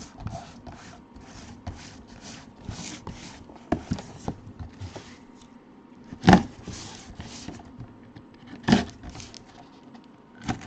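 Handling and opening of a cardboard box of packaging: repeated rustling and scraping with three sharp knocks, the loudest about six seconds in.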